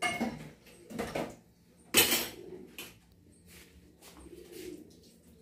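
Pigeons cooing, with a sharp clatter about two seconds in.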